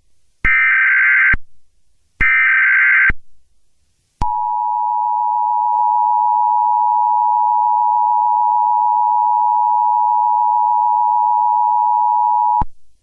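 Emergency Alert System tones: two bursts of the SAME digital data header, each about a second long, then the steady two-tone EAS attention signal (853 and 960 Hz sounded together) for about eight seconds, which stops abruptly. The attention signal announces that an emergency alert message follows.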